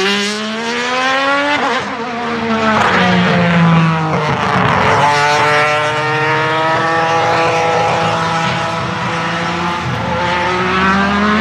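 Alfa Romeo 155 V6 TI DTM race car's V6 engine at full throttle on track: the revs climb, break off abruptly for an upshift about a second and a half in, fall away for a couple of seconds as it comes off the throttle, then build and climb again near the end.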